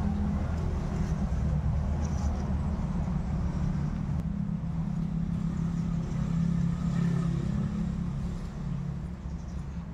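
A steady low engine hum, swelling a little about six to seven seconds in and easing near the end.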